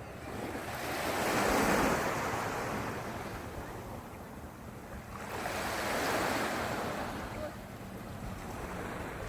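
Sea waves breaking and washing up the beach: two slow surges, about four seconds apart, over a steady low rumble of wind on the microphone.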